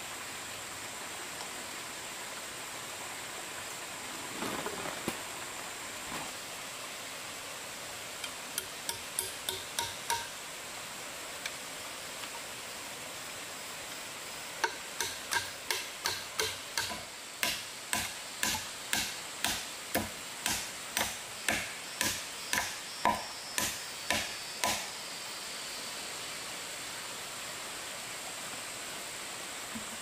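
Repeated sharp strikes of a hand tool: a quick run of about seven blows about eight seconds in, then a longer run of about twenty blows at roughly two a second, over a steady hiss.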